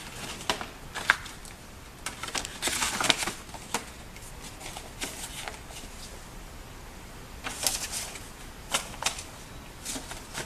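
Stiff paper cover rustling and scattered light clicks and knocks as it is handled and fitted into a manual glue binding machine's clamp, with a longer rustle a couple of seconds in.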